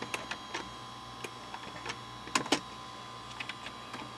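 Light computer mouse clicks while selecting in a restore program, with a louder double click about two and a half seconds in, over a steady electrical hum.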